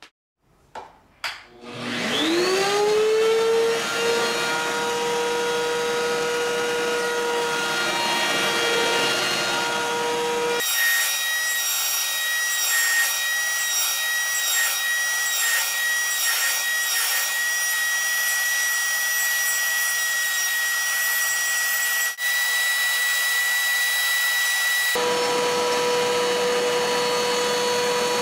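Small woodworking router under a router table switched on with a couple of clicks and spinning up to a steady high whine. It cuts a wooden dowel fed against the bit, and the tone shifts higher for about fifteen seconds in the middle before returning to the plain running whine.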